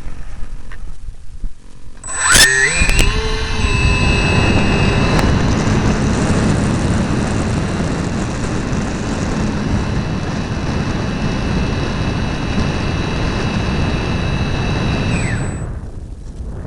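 An RC model plane's motors and propellers heard from an onboard camera. About two seconds in, the motors spool up quickly to a steady high whine over a heavy rush of air, and they hold there until near the end, when the whine drops away as the throttle comes back.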